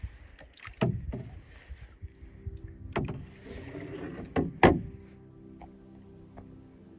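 Canoe being paddled: a handful of sharp splashes and knocks from the paddle, the loudest pair a little before the five-second mark. Soft background music fades in about two seconds in.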